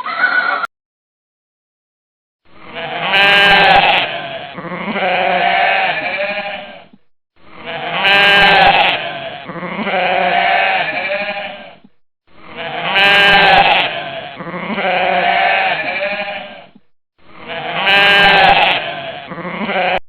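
Sheep bleating: a pair of long, wavering bleats, each about two seconds, played over and over as the same recording about four times with short gaps between, the last pair cut short.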